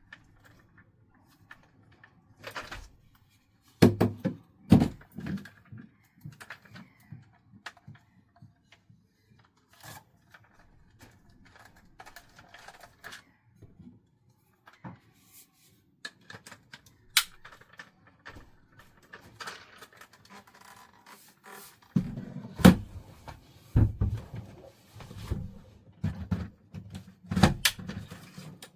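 Handling noise from a cordless handheld vacuum being assembled: scattered plastic clicks, knocks and rustles, with a few louder thumps about four seconds in and a busier run of knocks and thumps in the last several seconds.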